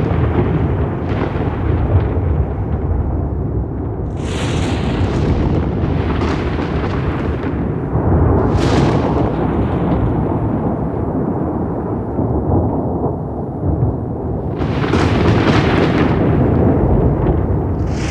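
Thunder rumbling continuously and deeply, with sharp crackling cracks about four seconds in and again around eight and a half seconds, and a louder crackling peal near the end.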